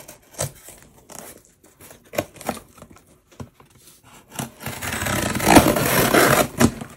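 A cardboard shipping box being opened by hand: a few light taps and clicks, then, from about two thirds of the way in, a couple of seconds of loud tearing and crinkling of the packaging.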